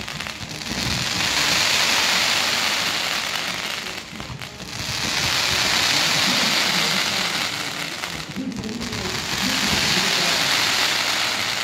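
Fireworks fountains shooting streams of sparks, a loud rushing hiss that swells up and dies back three times, each spray lasting about three to four seconds.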